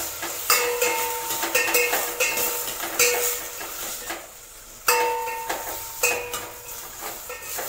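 A metal spoon stirs and knocks against a stainless steel pot, the pot ringing briefly after each knock, over a faint sizzle of brinjal frying in oil. There is a short lull in the stirring a little past four seconds in.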